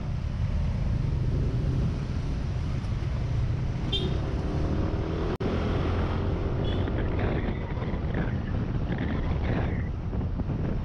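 Riding sound from a Yamaha NMAX 155 single-cylinder scooter in city traffic: a steady low rumble of engine, wind and road, with other vehicles passing. A short high beep comes about four seconds in, and the sound cuts out for a moment just after five seconds.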